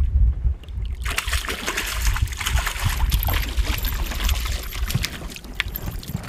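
A hooked fish thrashing at the water's surface as it is reeled in, splashing and spattering water from about a second in. Wind rumbles on the microphone underneath.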